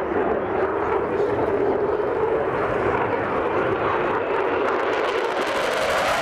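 Eurofighter Typhoon FGR4's twin EJ200 turbofans in afterburner as the jet flies past, a loud steady jet noise. A sharper, crackling edge builds about five seconds in as it comes close.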